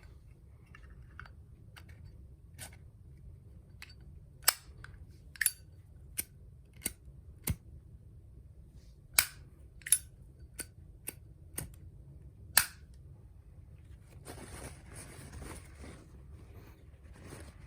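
Zippo lighter being handled: about a dozen sharp metallic clicks, irregularly spaced, as the insert goes back into the case and the hinged lid snaps. Near the end, a couple of seconds of scratchy rustling.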